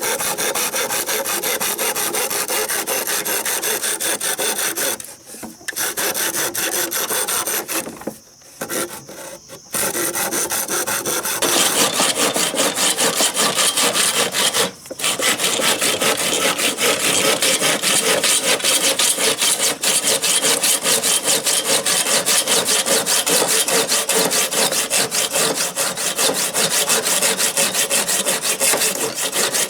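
Hand saw cutting wood in fast, steady rasping strokes, stopping briefly a few times and growing louder about a third of the way in.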